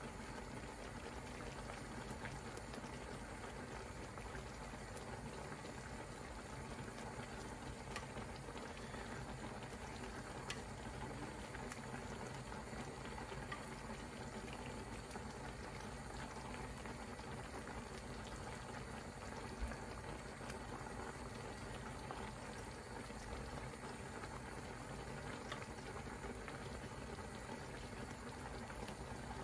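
Cream sauce simmering steadily in a cast-iron skillet, with a few faint clicks as pieces of chicken thigh are set into the pan.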